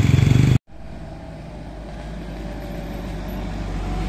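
Diesel engine of a loaded Mitsubishi Fuso light truck labouring up a steep climb, growing steadily louder as it comes close. Less than a second in, an earlier, louder engine sound cuts off abruptly.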